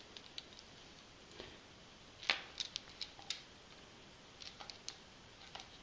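Small plastic DD metal-detector search coil and its wrapped cable being handled and turned over in the hands: a few light clicks and taps, the loudest about two seconds in.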